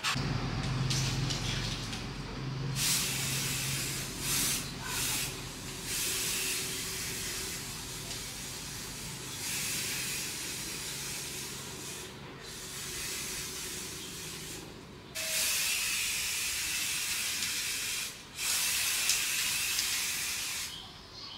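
Pressurised spray hissing in a series of bursts, each from under a second to several seconds long, with short gaps between them; a low hum runs under the first few seconds.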